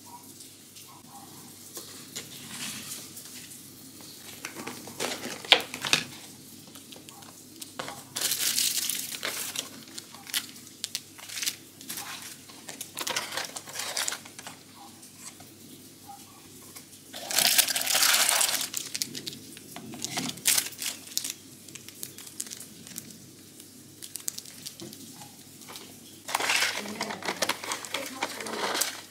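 Clear plastic wrap and a plastic food tray crinkling and rustling as they are handled and pulled at, with scattered small clicks and three louder bursts of crinkling, each a second or two long.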